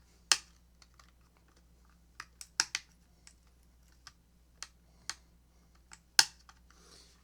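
Irregular sharp clicks and taps from handling the plastic parts of an opened Bluetooth speaker and its internal connectors, about a dozen, a few of them louder.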